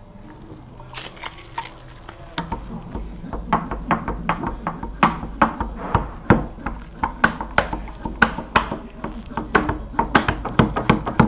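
Small metal laminating roller worked back and forth over resin-wet fibreglass mat to consolidate it and work out air, clicking and clattering in quick, uneven strokes, a few each second, that grow busier after the first couple of seconds.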